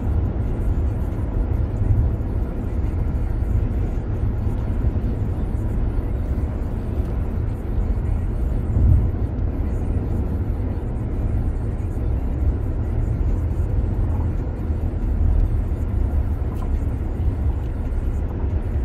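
Steady road and wind noise heard inside a car cruising at highway speed: a low rumble with a fainter hiss above it, and a brief bump about nine seconds in.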